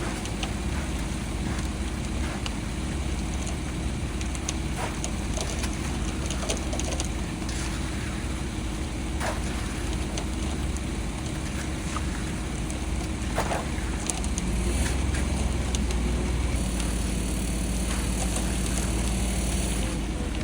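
An engine running steadily, with scattered short knocks; about two-thirds of the way through, its low hum grows louder and a new steady tone joins it.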